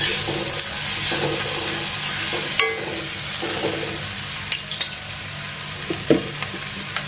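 Onion-tomato masala sizzling in hot oil in a kadhai, stirred with a spatula in scraping strokes about twice a second for the first four seconds, then a few light knocks as the stirring stops.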